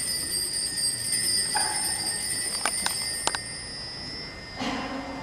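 Altar bell rung at the elevation of the host, giving a single long, clear ringing tone that slowly fades away, with a few sharp clicks about three seconds in. It marks the moment of consecration.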